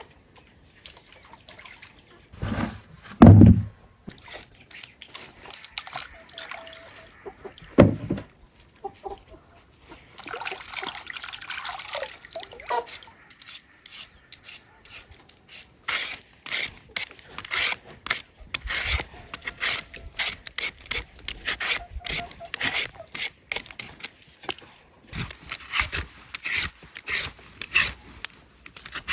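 Food being prepared for chickens: water pouring and dripping, two heavy knocks, then a long stretch of rapid clattering and scraping.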